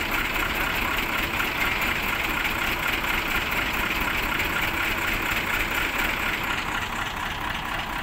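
Heavy diesel engine idling steadily.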